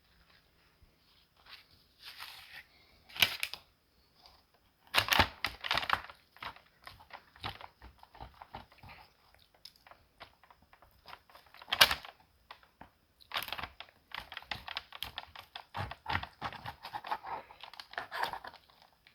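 A rack of smoked pork ribs being cut and pulled apart on butcher paper. The paper crinkles and rustles and the meat tears, with scattered clicks and a few sharper knocks.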